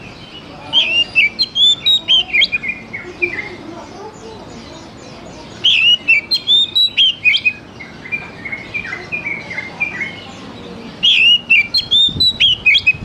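Oriental magpie-robin (kacer) singing in three bursts of quick, clear whistled notes that rise and fall, with short pauses between the bursts.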